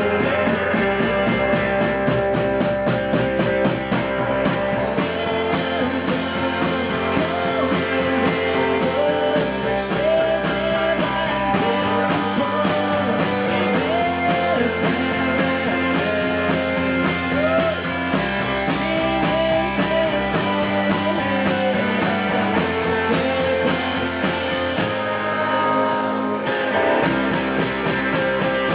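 Rock band playing a song: guitars over drums, with a lead line bending in pitch in the middle.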